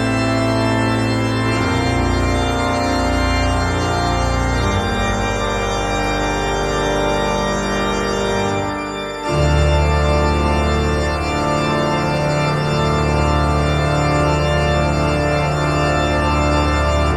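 Background music: sustained organ chords, the chord changing a few times, with a deeper, fuller chord entering about nine seconds in.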